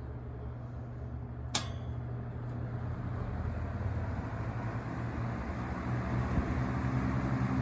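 Vintage Coast-Air 12-inch box fan switched from low to medium speed with a single click, then its low motor hum and air rush build steadily as the blade picks up speed.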